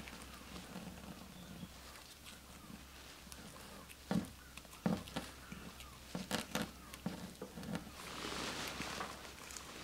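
Light hand-handling noises: faint scratching with a few sharp knocks around the middle, then a brief rustling hiss near the end.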